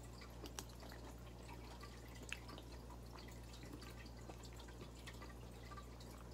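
Soft wet mouth clicks and smacks of someone chewing a mouthful of fried fish and rice, with a few sharper clicks about half a second and two seconds in, over a steady low hum.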